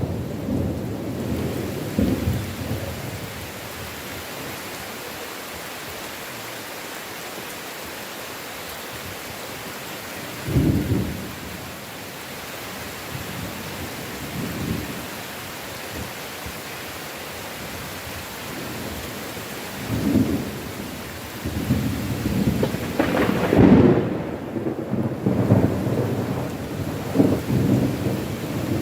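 Steady heavy rain falling in a forest, with rolls of thunder. Short rumbles come near the start and twice more in the first half, then a longer, louder rolling peal builds from about two-thirds of the way in.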